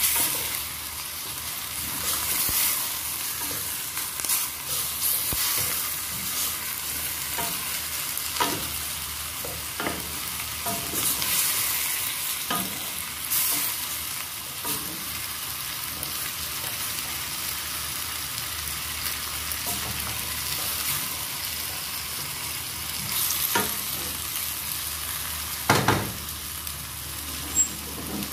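Sliced chicken and red onion sizzling in a stainless steel pot while a wooden spoon stirs them, scraping and tapping against the pot. A few louder knocks of the spoon come near the end.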